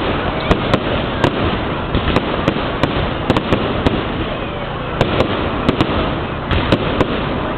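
Fireworks display: a continuous rumbling din of shell bursts with many sharp cracks and crackles, several a second.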